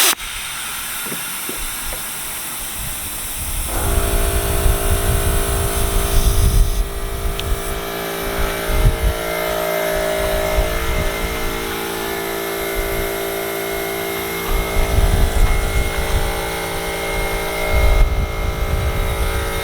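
Compressed air hissing steadily into a tractor tire's patched inner tube as it is inflated, after a sharp click at the start. About four seconds in, an air compressor starts and runs steadily with a low hum.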